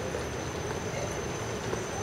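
Steady urban street noise: a low traffic hum, with a thin, high, steady whine running through it.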